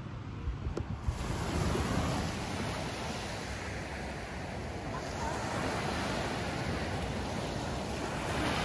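Ocean surf washing onto the beach, with wind on the microphone; a few short knocks in the first second, then the wash swells about a second in and again around five seconds in.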